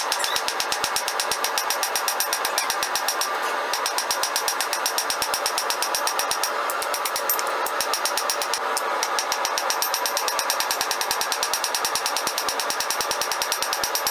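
Cross-peen hammer striking hot mild-steel flat bar on an anvil in a fast, even run of blows, several a second, with the anvil ringing between strikes: texturing the rose petals.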